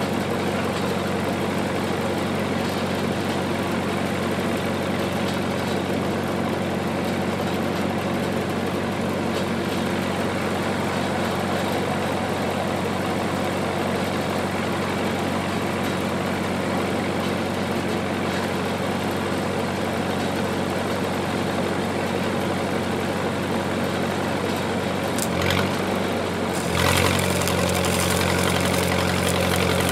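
Engine-driven welder's engine running steadily. Near the end its note changes briefly and the crackling hiss of a stick-welding arc starts.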